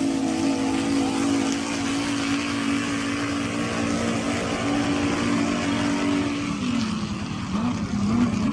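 Swamp buggy engine running at a steady high pitch during a drag run. About six and a half seconds in, the pitch drops and then wavers up and down.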